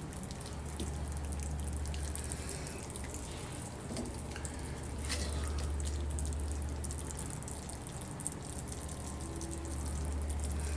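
Pot of chicken, potato and pepper stew simmering, with wet dripping and bubbling of sauce. A steady low hum swells and fades underneath.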